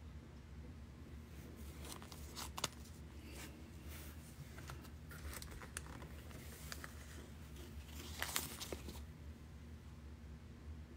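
Handling noise: scattered rustling, crinkling and light clicks as polished nuummite cabochons are put down and picked up. It is loudest about two and a half seconds in and again around eight seconds in, over a low steady hum.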